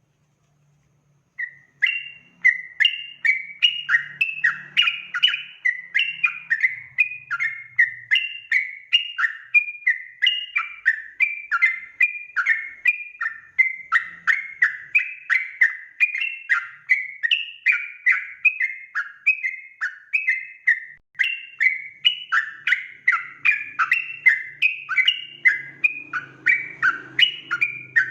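Yellow-vented bulbul (trucukan) singing a rapid, continuous run of bubbly chirping phrases, the 'ropel' song used as a lure call to make other bulbuls answer. It starts about a second and a half in and keeps going without pause.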